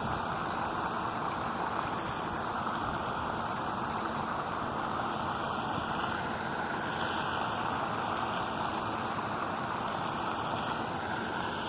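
Steady, even noise of a vehicle running: a constant hiss and rumble with no rhythm or distinct events.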